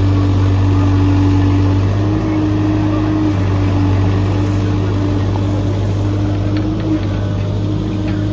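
Heavy construction machine's diesel engine running at a steady speed, its pitch wavering slightly, with a few light clicks near the end.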